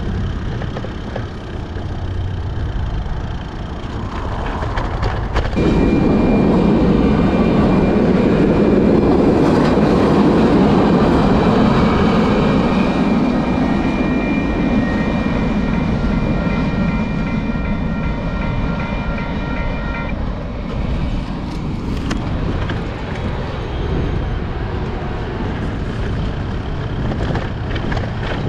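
A train rolling through a road-level railroad crossing. A loud steady rumble comes up suddenly about five seconds in. Several steady high tones sound over it and stop together about twenty seconds in.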